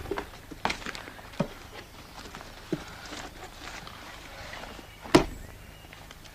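Several irregular knocks and thuds, a few seconds apart, with one loud sharp knock about five seconds in.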